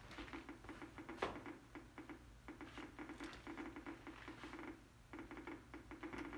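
Geiger counter clicking rapidly and irregularly as its tube picks up beta radiation from a strontium-90 source 6 cm away, with one sharper tick about a second in.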